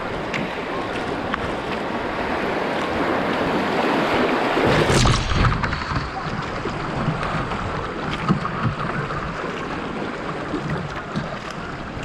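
Rushing river water and splashing around a kayak being paddled hard through fast, high water. The rush builds to its loudest about five seconds in, then eases and turns duller.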